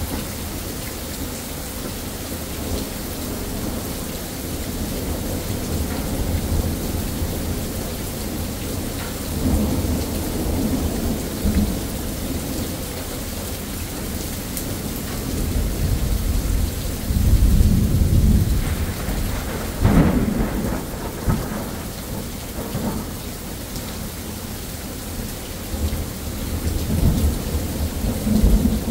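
Steady rain falling during a thunderstorm, with rolling thunder. The rumbling swells about halfway through, a sharper crack of thunder follows a few seconds later, and more rumbling comes near the end.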